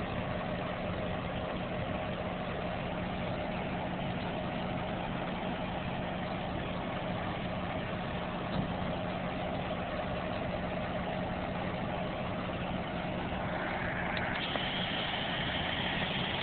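Vehicle engine idling steadily, with a higher steady whine joining in about fourteen seconds in.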